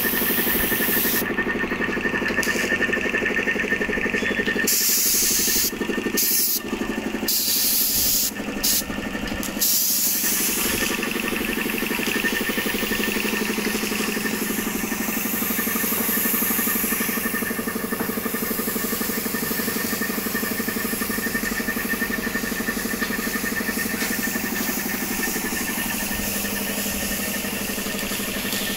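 An engine running steadily at idle, with a constant hum and a steady high whine over it, dipping briefly a few times between about five and ten seconds in.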